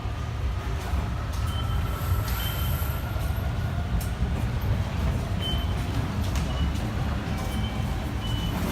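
Electric train running along the track, a steady low rumble with scattered clicks and short high squeaks.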